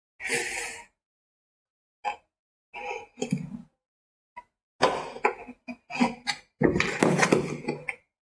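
Utility knife cutting the packing tape on a cardboard parcel, with scraping and rustling of tape and cardboard in short, separate bursts, busiest from about five seconds in.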